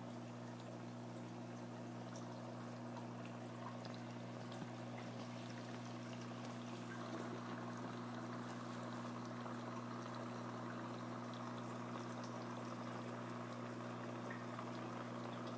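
Aquarium water running and bubbling over a steady electrical hum, the circulation of an octopus's seawater tank.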